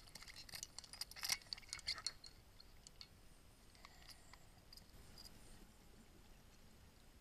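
Underwater, a scuba diver's exhaled bubbles crackle and click in a short flurry over the first two seconds, then fade to a faint steady hiss with a few scattered ticks.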